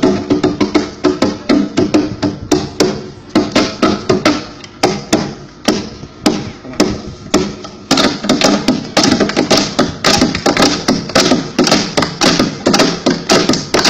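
Fast, irregular sharp knocks or strikes over a steady pitched background, getting denser and louder about eight seconds in.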